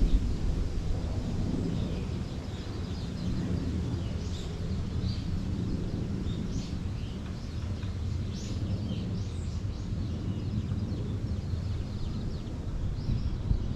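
Small songbirds chirping in short, scattered high calls over a steady low rumble.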